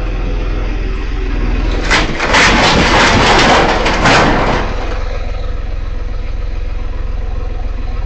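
An engine running steadily, with a loud, rough burst of about two and a half seconds near the middle before it settles back.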